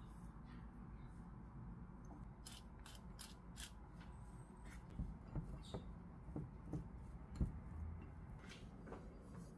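Crisp clicking of a small hand seasoning grinder as sesame is ground over a bowl of rice. It is followed by a few soft knocks and scraping of a silicone spatula in a ceramic bowl as the rice is mixed, the loudest knock near the end.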